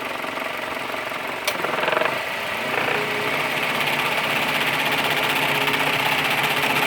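Renault Scénic's electric radiator cooling fan running up and getting louder once the air conditioning is switched on, with one sharp click about one and a half seconds in. The noise comes from a worn bearing on the fan blade's shaft that lets the blade run loose.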